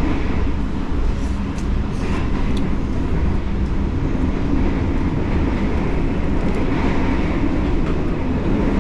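Steady rumble of a moving passenger train heard from inside the carriage, with a few faint ticks in the first few seconds.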